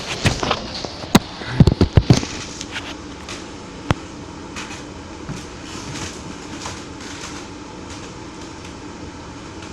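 A quick run of sharp knocks and thumps in the first two seconds, with one more about four seconds in, over a steady background hum.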